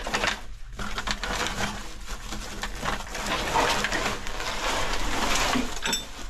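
Rustling and crackling with scattered knocks and clicks as a pile of dry construction debris (wooden planks, plastic sheeting and sacking) is disturbed.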